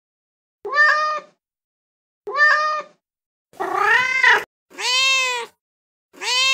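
Domestic cat meows played as recorded clips from a phone sound app: five separate meows with silence between them. The first two are short, and the later ones are longer, rising and then falling in pitch.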